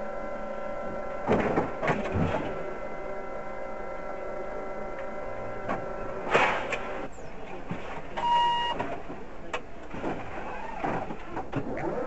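Traffic heard from inside a stopped car, over a steady mechanical hum. A car passes close by about six seconds in, and a short beep sounds about eight seconds in.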